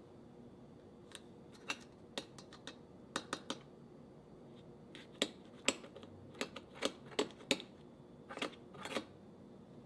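Measuring spoon clicking and scraping against a metal nonstick mini cheesecake pan as crushed Oreo crumbs are spooned in and pressed into a cup: a string of irregular light clicks, most of them between about five and nine seconds in.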